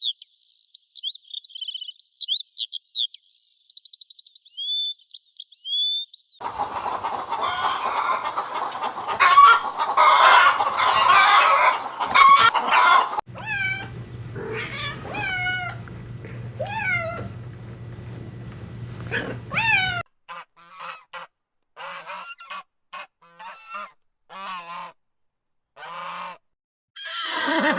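Farm poultry calling, geese honking among them, in a run of short clips. First comes high, rapid chirping. Then a whole flock calls at once. Then separate honks and clucks follow with short silences between them.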